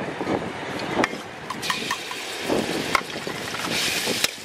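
Metal spatula clinking a few times against a steel wok over sizzling oil, the sizzle growing stronger near the end as raw pork pieces go into the pan.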